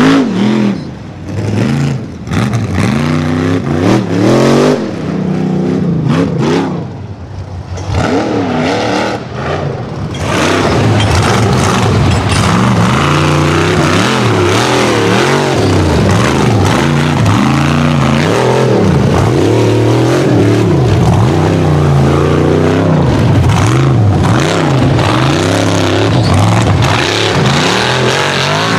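Rock bouncer's engine revving hard, its pitch rising and falling with rapid throttle blips. Over the first ten seconds it backs off briefly a few times, then it stays at high revs with constant quick swings of pitch.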